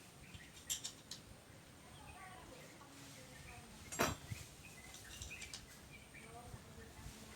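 Faint background with scattered bird-like chirps, a couple of light clicks about a second in and a sharper click about four seconds in.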